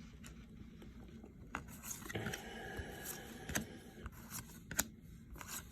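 Baseball trading cards handled and flipped through by hand: soft sliding scrapes of card on card with scattered light clicks of card edges.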